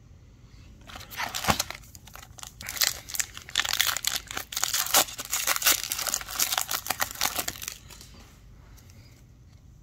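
Foil wrapper of an Upper Deck hockey card pack crinkling and tearing as it is opened by hand. It starts about a second in and stops shortly before the end.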